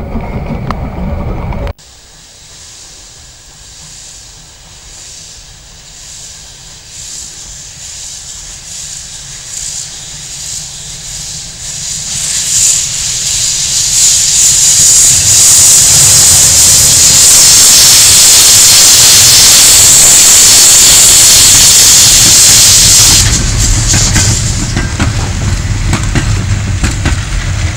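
A narrow gauge steam locomotive hauling a train approaches and passes close, venting steam. A hiss of steam grows louder over about ten seconds into a loud, steady hiss. It drops away sharply near the end, leaving the low rumble of the passing train.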